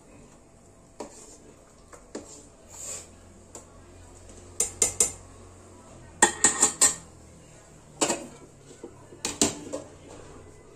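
Metal spoon clinking and scraping against a cooking pot while bulgur pilaf is stirred, in a few quick clusters of sharp clinks.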